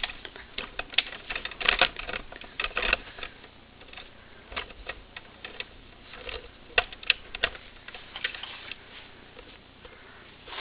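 Handling noise: irregular clicks, taps and rustling, bunched in short flurries, as plush toys are moved about by hand.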